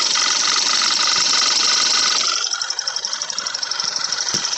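Audi B8 A4 engine idling with a steady rapid clicking, about five or six clicks a second, from the evap purge valve, over the finer ticking of the fuel injectors; these are normal noises for this engine. The engine's louder hiss drops about halfway through while the clicking carries on, and there is a single short thump near the end.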